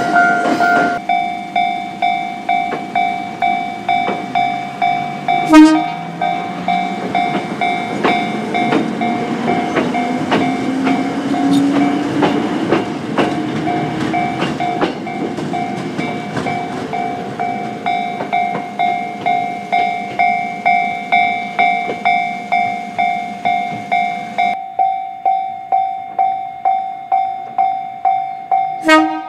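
Japanese level-crossing warning bell ringing in a rapid, even rhythm of about two strikes a second. Partway through, an electric train passes over the crossing with wheel clatter and a motor whine rising in pitch.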